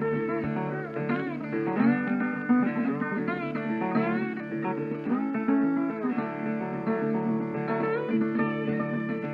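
Background music: plucked acoustic guitar with sliding notes, in a bluesy style.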